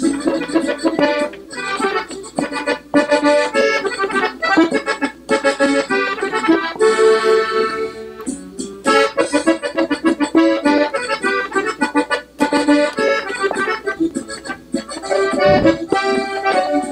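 Gabbanelli diatonic button accordion, tuned in E, playing a norteño melody in D at tempo, with quick runs, trills and short pauses between phrases. There is a single low thump near the end.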